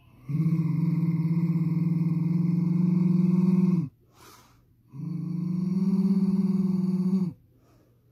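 A woman's deliberate throat growl, made by tensing the throat and slowly forcing breath out, with the vocal cords or oesophagus vibrating: a low, steady, Chewbacca-like rumble held twice, first for about three and a half seconds and then for about two and a half, with a short breath between.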